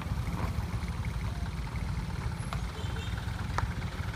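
Low, steady rumble of motor vehicles running on a gravel road: a car and motorcycles close by, with a couple of faint ticks.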